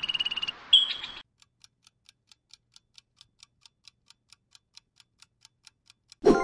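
A squirrel's rapid chattering call stops about a second in. A countdown clock then ticks about four times a second, and a bright chime of several ringing tones sounds right at the end.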